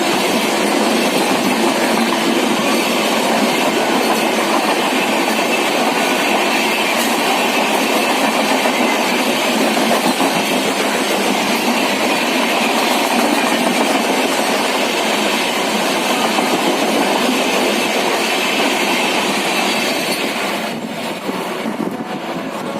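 Passenger coaches of an express train running through a station at speed, the wheels rumbling and clattering over the rail joints in a steady rush that eases a little near the end as the train draws away.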